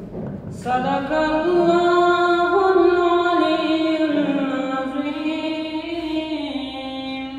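A boy's unaccompanied voice through a microphone, chanting one long drawn-out sung phrase whose pitch slowly rises and falls, starting about half a second in.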